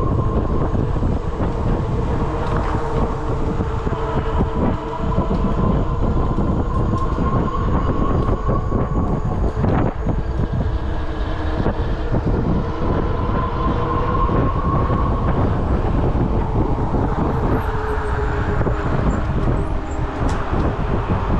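Riding an electric bike: the hub motor whines steadily, its pitch drifting up and down with speed, over a heavy rumble of wind on the microphone and tyre noise.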